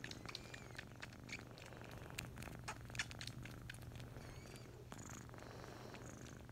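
A Himalayan cat purring steadily right against the microphone, a low continuous rumble, with scattered soft clicks throughout.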